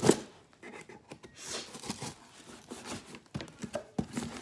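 Cardboard box being pried and torn open with a fork: short bouts of cardboard scraping, ripping and rustling, loudest in one sharp rip right at the start.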